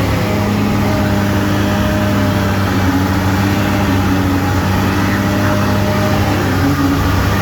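Diesel engine of a Morooka tracked crawler carrier running steadily, a low hum with a few held tones that shift slightly in pitch.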